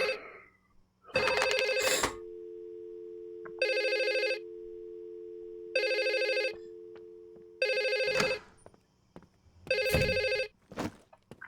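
A telephone ringing over and over, about five rings roughly two seconds apart, before the call is answered. A steady low two-note tone sounds under the middle rings.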